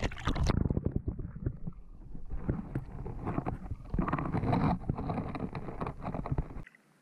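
GoPro in its waterproof housing plunged into pond water: water sloshing around it, then the sound turns muffled a little under a second in as it goes under. Muffled underwater rumbling with irregular knocks follows as the housing is moved and settles on the bottom, then cuts off sharply near the end.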